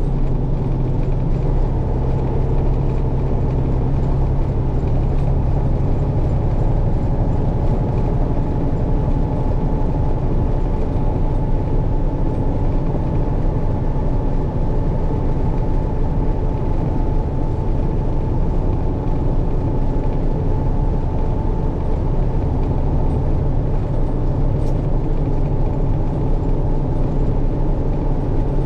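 Tractor-trailer diesel engine and road noise heard from inside the cab while driving, a steady low drone.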